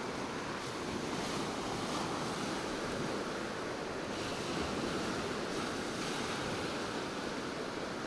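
Caspian Sea surf washing steadily onto a sandy beach, mixed with wind.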